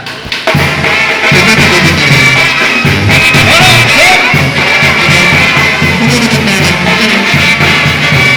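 Banda brass band playing a corrido, brass and trumpets over a pulsing bass line, coming in about half a second in.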